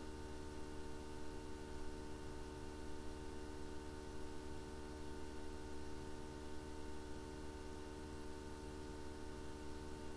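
Steady low hum and hiss with several faint constant tones over it, unchanging throughout: background recording noise, with no distinct event.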